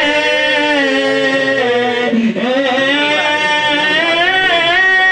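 A man singing a naat, holding long, wavering notes without clear words, with a brief break for breath a little past two seconds in.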